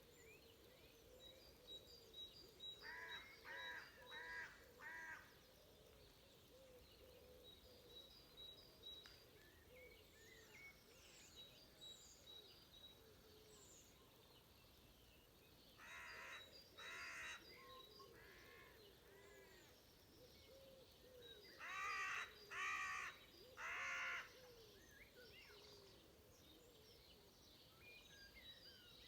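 Crow cawing in three runs: four caws a few seconds in, two around the middle and three more about three quarters through. Between the runs, small birds chirp faintly and steadily in a dawn chorus.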